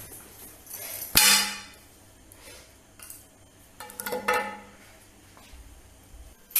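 A bag set down on a glass tabletop with a sharp knock and a short ring about a second in, the loudest sound. Then a stethoscope is laid on the glass, and its metal chest piece and tubing clink a few times.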